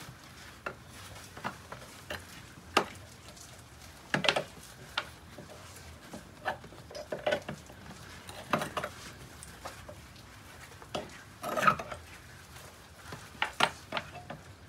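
Pliers turning the threaded compression strut of a steel Simpson Strong-Tie BVLZ brick veneer bracket, which is stiff to wind out. Irregular metal clicks and short scrapes, in several clusters, the loudest a little past the middle.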